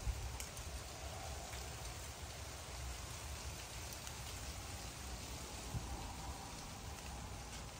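Light rain falling on a concrete walkway and shrubs, heard as a steady soft hiss with a few sharp drop ticks.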